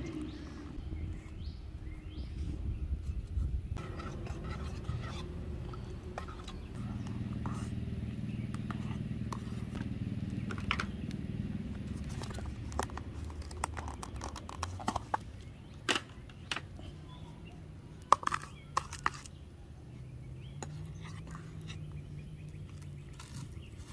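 Hand-handling sounds of camp cooking: scattered sharp clicks and knocks from a plastic food container's snap lid being opened and a spoon against a stainless steel cup on a small folding wood stove, the sharpest clicks coming in a cluster a little past the middle. A faint steady low hum sits underneath.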